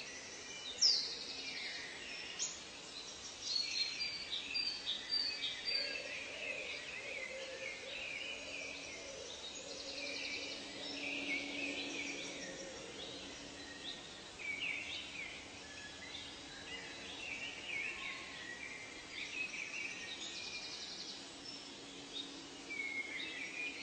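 A chorus of many wild birds calling and singing together: overlapping chirps, trills and whistles, with a sharp downward-sweeping call about a second in.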